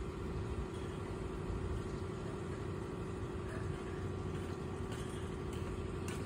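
Steady motor hum, one constant tone over a low rumble, unchanging throughout.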